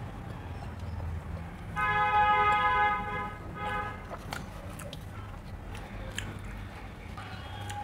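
A vehicle horn honks once for just over a second, then gives a short second toot. Faint clicks and mouth sounds of chewing run underneath.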